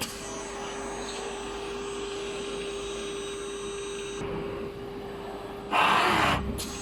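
Polyurethane gasket dispensing machine running an automatic dispensing cycle: a steady hum with a held tone and high-pitched whines that stop about four seconds in. Near the end a loud hiss lasts about half a second, followed by a short click.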